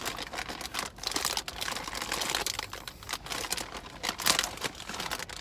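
Plastic snack bag crinkling and rustling as it is handled, an irregular run of crackles.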